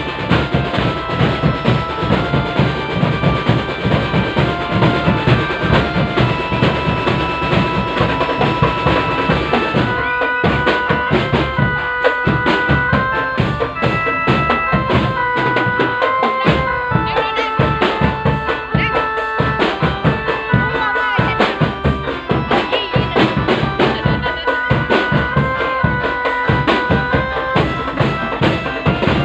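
Drum band music: steady, dense drumming with bass drum under a melody of held notes. The sound changes about ten seconds in, the low drums becoming thinner and the melody more prominent.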